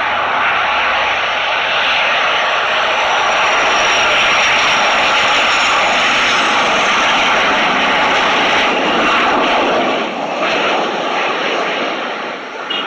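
Jet engines of a Boeing 737 airliner landing: a loud, steady rush with a faint high whine that slides slowly downward, easing a little about ten seconds in as the plane rolls out on the runway.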